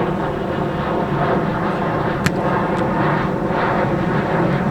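Jet aircraft passing overhead: a loud, steady engine drone. Two sharp clicks come a little over two seconds in.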